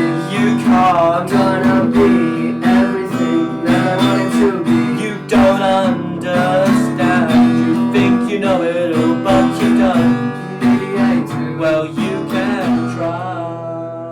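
Instrumental outro of an indie song: strummed acoustic guitar chords with a melody over them, thinning out near the end.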